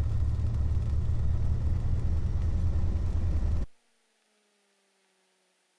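Cessna 172 Skyhawk XP's engine running steadily at run-up power, a loud low rumble that cuts off abruptly about three and a half seconds in, leaving only a faint, slowly falling hum.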